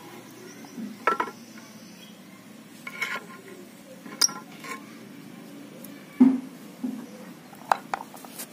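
A thin metal rod scraping and knocking inside a diesel intake manifold, chipping out thick EGR carbon deposits: irregular scrapes and metallic clinks, with the loudest knock about six seconds in.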